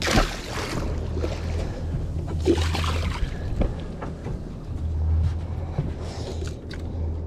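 A released jack splashing into the sea beside the boat, then water splashing again about two and a half seconds in, over a steady low rumble.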